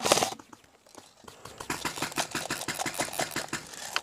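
Airsoft rifle firing full-auto: a short burst right at the start, then from about a second and a half in a long, fast, even rattle of shots.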